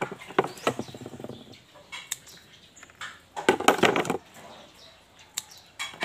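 Rustling and crackling of turtle vine (Callisia repens) stems and small leaves as they are handled and picked through, in two bursts: about a second in and again near the middle.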